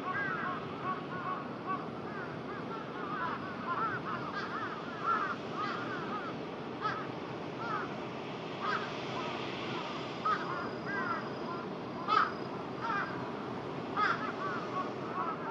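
Crows cawing, many short calls overlapping almost without pause, with a few louder caws about a third of the way in and again near the end, over a steady background hiss.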